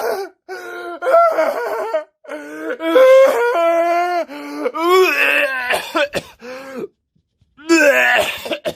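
A person wailing and groaning without words in high, drawn-out cries that bend up and down in pitch, several in a row with a short pause near the end, as in an exaggerated meltdown.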